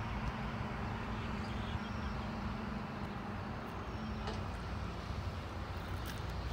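Steady low outdoor background rumble with a faint steady hum that fades out about two-thirds of the way through; no distinct event.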